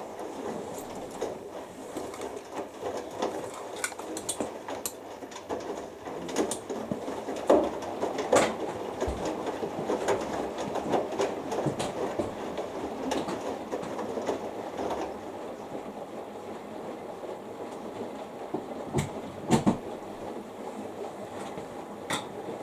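Two front-loading washing machines in their main wash: drums turning and laundry tumbling and sloshing in water, with scattered sharp clicks and knocks as the load drops.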